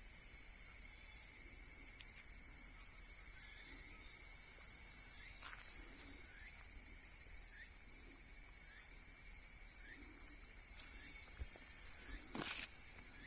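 Steady, high-pitched chorus of summer insects, with short chirps repeating about once a second and a single brief knock near the end.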